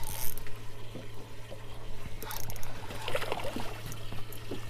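Water trickling and lapping against a boat's hull, with scattered light clicks and a steady low hum underneath.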